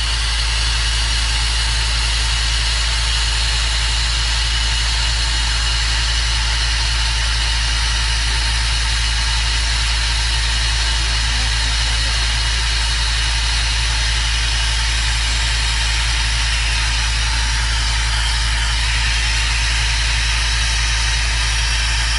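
Steady low engine idle with a constant hiss over it, the hiss of oxygen flowing through a resuscitation mask held to a cat's face.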